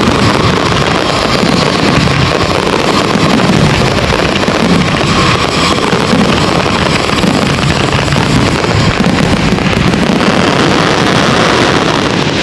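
Steady rumbling wind noise buffeting the microphone, with no separate bangs standing out.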